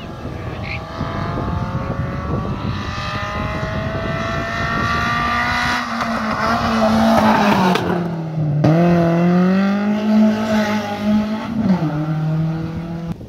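Rally car engine at full throttle as the car approaches and passes close by, its note climbing steadily and loudest as it goes past. The pitch then drops sharply twice, near nine seconds and near twelve seconds, climbing again in between.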